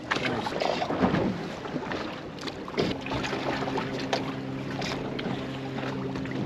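Wind buffeting the microphone over a boat deck, with a few light knocks, then a steady engine hum that sets in about three seconds in and holds.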